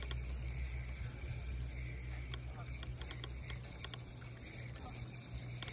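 Outdoor lakeshore ambience: a steady low rumble, with light clicks and ticks scattered through the second half.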